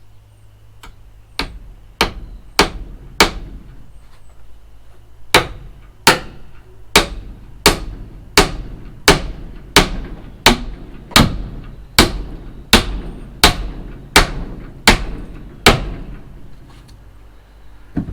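Steel hammer striking over and over, driving a nail into timber: a handful of blows, a short pause, then a long even run of about one and a half blows a second that stops near the end.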